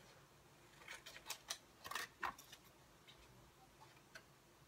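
Faint clicks and light rustling of hands handling scissors and a small paper plant label, bunched between about one and two and a half seconds in, with a couple more near the end.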